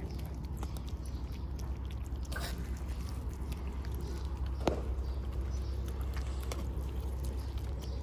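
Kittens chewing wet cat food off a metal plate: many small wet clicks over a low steady hum, with one sharp click a little past halfway.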